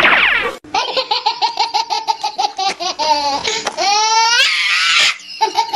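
High-pitched laughing sound effect: rapid, even 'ha-ha-ha' bursts, broken in the middle by two rising squeals and a shrill shriek before the quick laughing resumes.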